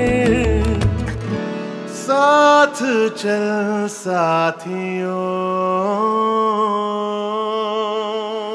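Soundtrack music: a song with a singing voice over instruments. The low bass drops out about a second and a half in, leaving a few short sung phrases and then long held notes that begin to fade near the end.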